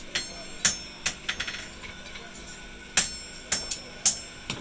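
Hand hammer striking a steel garden-trowel blade on a small steel anvil block, in irregular ringing metal-on-metal blows. A quick run of lighter taps comes about a second in, then a pause, then four more blows near the end.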